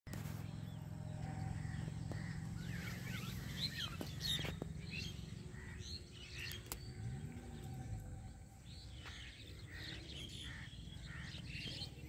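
Many small birds chirping and calling in quick, overlapping notes, over a steady low rumble.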